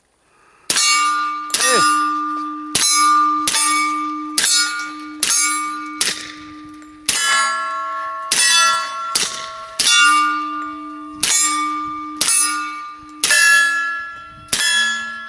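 Suppressed FN FNP-45 .45 pistol with a Banish 45 suppressor fired about fifteen times at a steady pace, emptying the magazine. Each shot is followed by steel targets clanging and ringing on, with two plates ringing at different pitches.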